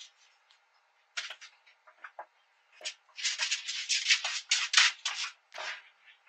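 A British Shorthair kitten's fur brushing and rubbing against the camera's microphone as it presses against and climbs over it: scratchy rustles, a few about a second in, then a dense run from about three to five seconds in and one more near the end.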